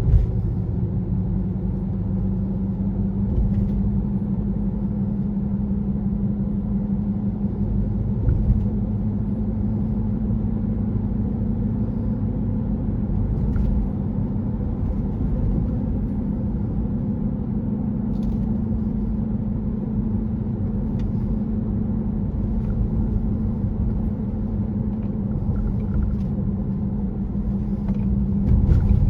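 2018 Honda CR-V on the move, with a loud steady hum at one pitch over low road rumble. The owner suspects a bad wheel hub assembly or bad tyres, since the hum does not come when the front wheels are lifted and turned at the same speeds.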